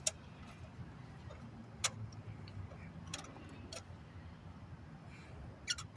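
Hand tools clinking during spark plug removal: a handful of short, sharp metallic clicks a second or more apart, over a low steady hum.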